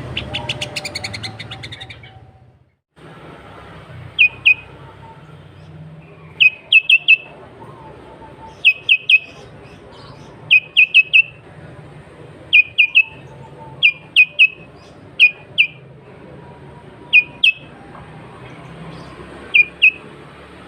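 Sooty-headed bulbul calling. A quick rattling run of notes in the first two seconds, then, after a short break, repeated sharp chirping phrases of two to four notes every couple of seconds.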